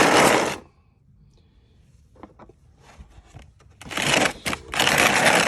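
Handling noise from a brake caliper piston rewind tool kit: brief rattling and rustling in the first half second, then two longer bursts from about four seconds in.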